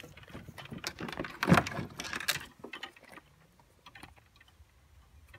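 Plastic milk crate knocking and rattling against a plastic kayak hull as it is seated in the rear well and its small clips are pushed into their holes. There are sharp knocks and clatter over the first couple of seconds, the loudest about a second and a half in.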